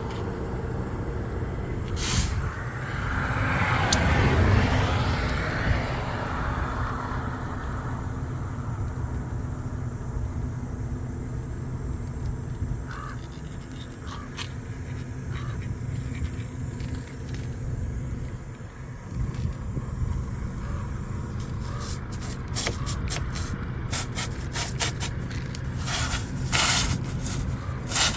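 Steady low hum of an idling engine, with a rushing swell of passing traffic a few seconds in. In the last quarter comes a run of short, uneven scraping strokes: the tyre plug kit's tool being worked in and out of the puncture.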